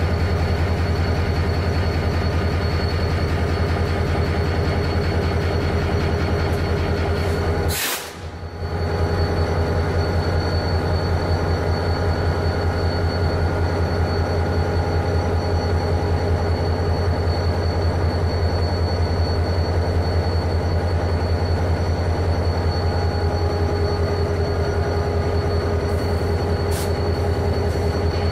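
Full-size diesel-electric locomotive idling: a steady, throbbing low engine hum with a faint constant whine above it, briefly cut off about eight seconds in.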